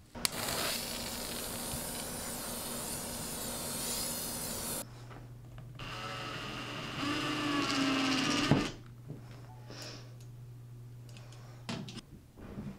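20 V cordless drill driving a screw into a towel-ring mounting bracket, a short whir that climbs in pitch about seven seconds in. Before it, a steady rushing hiss fills the first five seconds.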